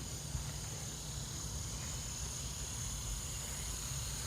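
Evening insect chorus, crickets chirring in one steady high-pitched drone, over a low steady rumble.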